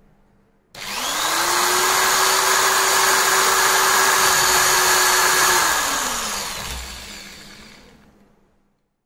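Electric hand drill mounted as a drilling-machine spindle switches on and spins up within about half a second, runs at a steady speed for about five seconds, then switches off and winds down with a falling pitch.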